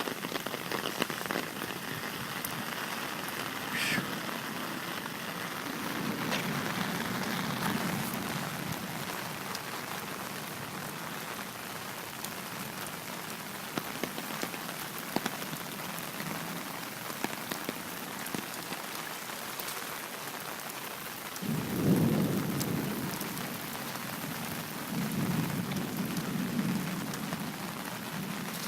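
Steady rain falling, with thunder rumbling several times; the loudest rumble comes about three quarters of the way through.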